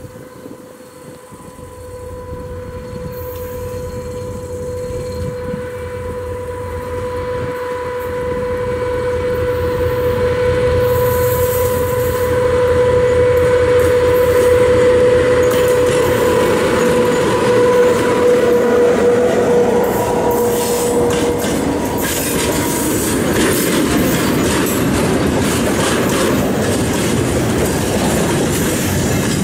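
TGM6A diesel-hydraulic shunting locomotive approaching and passing with a short freight train: its engine running with a steady whine, growing louder over the first ten seconds or so. The whine fades about twenty seconds in, leaving the clatter of the freight wagons' wheels on the rails.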